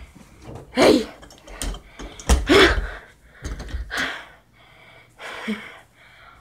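A person's breathy gasps and huffs: several loud ones in the first four seconds, then softer breaths near the end.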